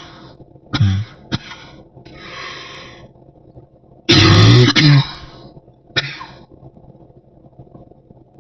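A person coughing deep, chesty coughs from a cold or flu: a short cough about a second in, a breath drawn in, then a loud double cough about four seconds in and a short one near six seconds.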